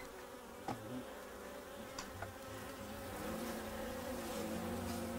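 Hornet buzzing in flight: a steady droning hum that grows louder about three seconds in.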